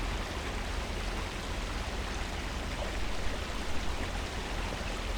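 Steady, even rain-like rushing hiss with a low rumble underneath: a continuous ambient sound bed with no changes.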